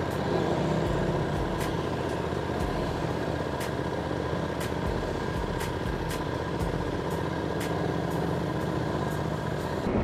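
Motorcycle engines running at low speed as several adventure motorcycles ride slowly past and pull away, a steady rumble.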